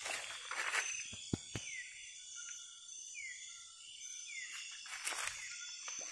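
Footsteps through forest undergrowth about the first second and again near the end, over a steady high chorus of night insects. In the quieter stretch between them come several short falling chirps from an animal.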